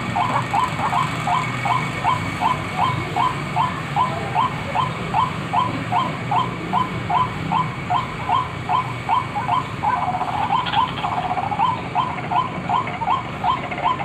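White-breasted waterhen (ruak-ruak) lure call: short notes repeated evenly, about three a second, without a break.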